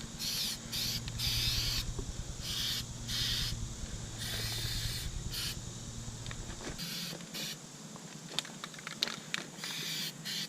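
Aerosol can of Flex Seal rubber coating spraying in short hissing bursts, about a dozen over the first seven seconds, followed by a few light clicks.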